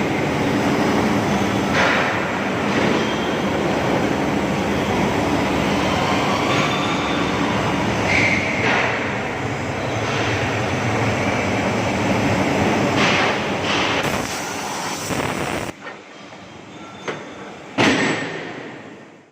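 Chamfering machine cutting a bevel into metal: a loud, steady grinding and scraping with occasional sharper scrapes. It stops about sixteen seconds in, followed by a few light knocks and one loud clank near the end before the sound fades out.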